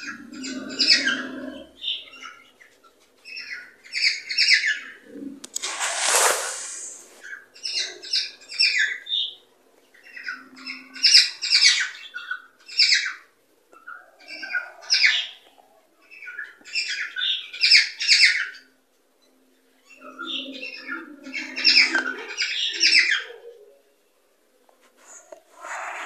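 Cockatiels chirping in repeated short bursts of quick notes, with brief pauses between phrases, and one short harsh noisy burst about six seconds in.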